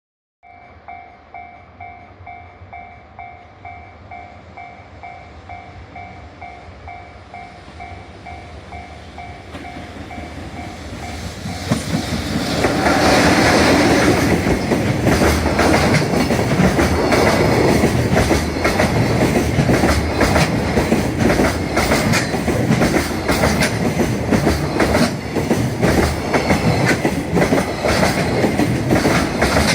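Japanese level-crossing warning bell ringing about twice a second while a train approaches. About 13 s in, an EF66 100-series electric locomotive and its freight wagons pass loudly, the wheels clattering rhythmically over the rail joints and covering the bell.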